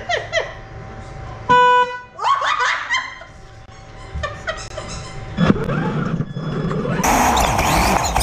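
A short electronic horn beep from a remote-controlled toy car, a single half-second toot that is the loudest sound here, with voices laughing around it. Near the end a steady rushing noise takes over.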